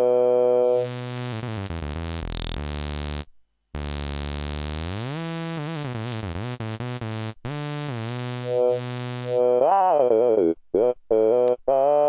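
Moog One 16-voice analog polyphonic synthesizer played from its keyboard on a preset patch. Held chords whose tone sweeps up and down, with a brief break in the sound about three and a half seconds in.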